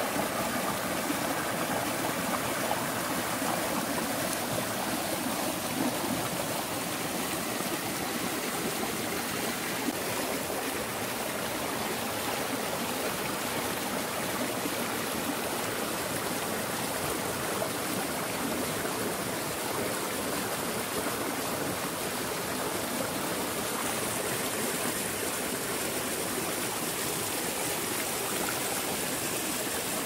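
Mountain valley stream flowing, a steady, even rush of water.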